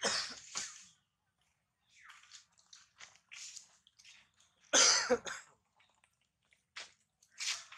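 Macaques moving about on dry leaf litter and eating: scattered short rustles and crunches, with one louder burst about five seconds in.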